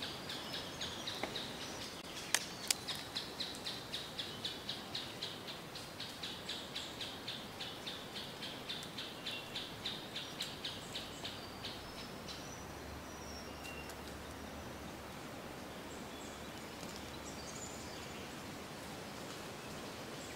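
Nature ambience: a steady hiss with a high chirp repeated about three times a second, which stops about halfway through and leaves the hiss and a few faint, scattered chirps. Two sharp clicks about two seconds in.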